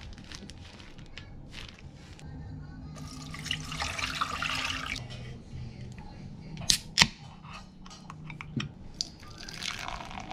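An aluminium drink can's pull-tab cracks open with two sharp clicks a little past halfway. Near the end the drink is poured, splashing into a metal tumbler.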